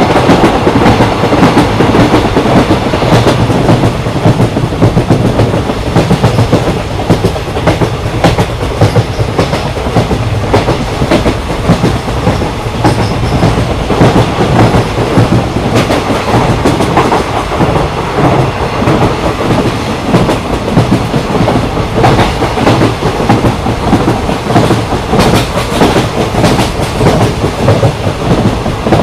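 Indian Railways ICF passenger coach running at speed, its wheels clattering over the rail joints with a steady rumble and a rapid scatter of clicks, as heard from inside the coach.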